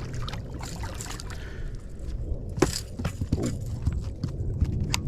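Water splashing and sloshing as a hooked bass is brought in at the boat, with scattered clicks and a sharp knock about two and a half seconds in over a steady low rumble.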